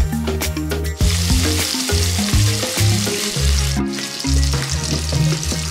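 Pork belly slices sizzling in oil in a non-stick frying pan over mild heat, the sizzle setting in about a second in, with a brief drop about two-thirds of the way through. A background music bass line runs underneath.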